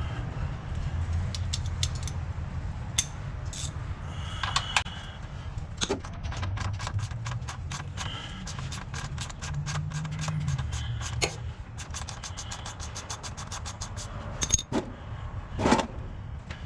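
Socket ratchet clicking as a 13 mm socket backs out an oil drain plug: scattered clicks at first, then a long quick run of even clicks, and a couple of louder knocks near the end.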